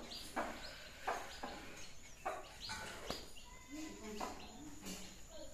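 A hen clucking low to her chicks while the chicks give short high peeps now and then.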